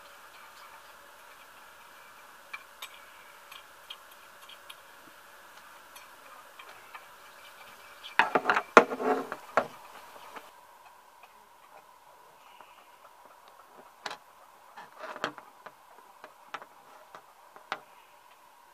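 Sharp little clicks and snaps of a knife cutting into wood while a small wooden spoon is carved by hand, scattered at first, with a quick flurry of louder clicks about eight seconds in and a few more near the end.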